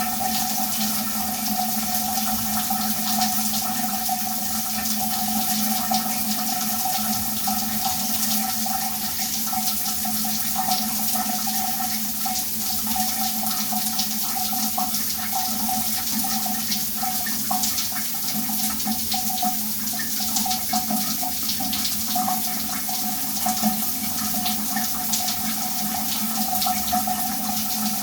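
Shower running steadily: water spraying and splattering in a continuous even hiss, with a steady low hum and mid tone under it.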